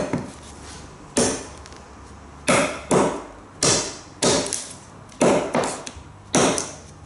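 Japanese nata hatchet chopping into wood: about nine sharp chops at an uneven pace, some coming in quick pairs.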